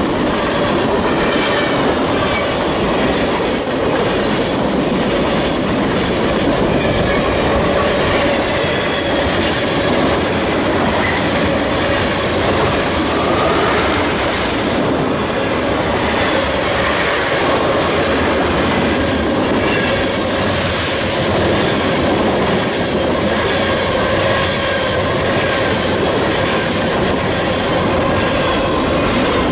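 Freight cars of a long mixed train (covered hoppers, tank cars, boxcars) rolling past close by, steel wheels rumbling and clicking over the rails, with a faint steady wheel squeal on top. The sound stays even throughout.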